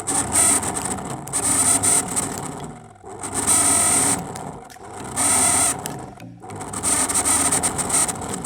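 Microwave oven fan motor, out of the oven and running on direct supply, making a loud grinding rattle that swells and fades about four times. The repairer puts it down to the motor's shaft bushes being dry or worn.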